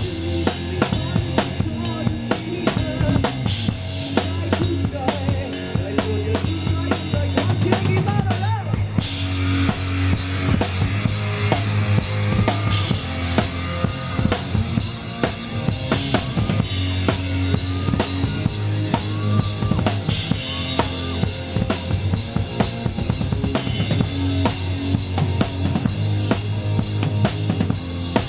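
A rock band playing live, the drum kit loudest with a steady beat of kick, snare and cymbals, over bass and electric guitars.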